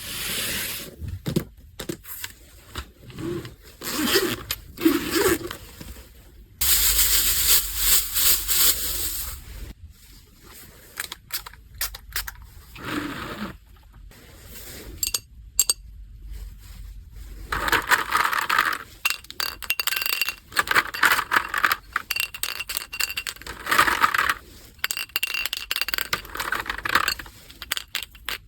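Hands handling packaging and small items: irregular rustling and scraping with light clicks and clinks, in bursts that come and go.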